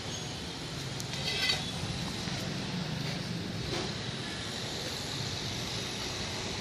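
Steady background traffic noise with a low rumble, and a brief high-pitched sound about a second and a half in.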